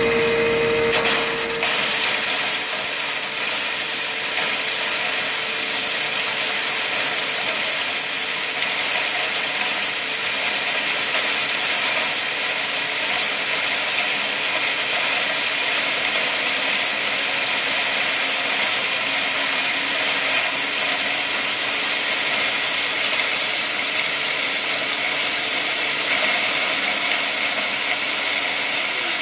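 Model 198 hammer mill, driven by a 4 hp 220 V single-phase electric motor, running steadily and loudly while grinding shotgun shell plastic through a 10 mm screen.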